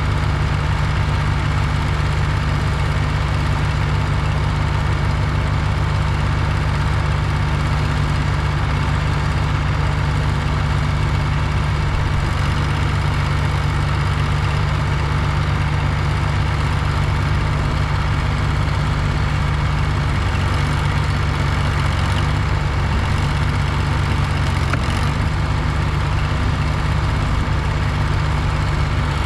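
Heavy engine of a construction machine running steadily at a constant speed, with a slight change in its note past the middle.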